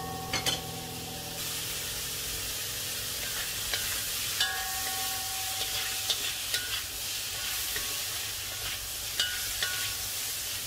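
Sliced onions and carrots sizzling in a hot wok while a metal spatula stirs them, scraping and tapping against the pan. The sizzle grows louder about a second and a half in, and a couple of strikes set the wok ringing briefly.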